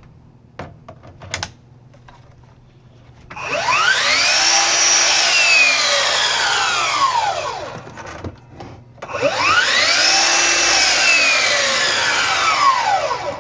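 Bosch GCM 18V-12 GDC cordless miter saw run twice with no load: each time the motor spins the blade up for about a second, then the blade coasts down slowly for several seconds after the trigger is let go. The slow run-down shows the saw has no quick-stop blade brake. A few small clicks come before the first run.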